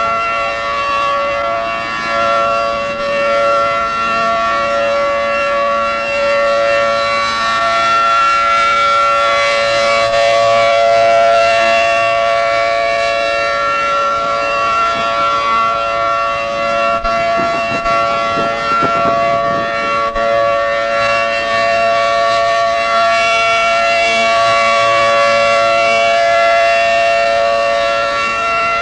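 Federal Signal 500AT outdoor warning siren holding a steady tone at full speed, its loudness slowly swelling and fading: the steady tornado warning signal. Heard through an old cassette recording, with tape hiss and dull highs.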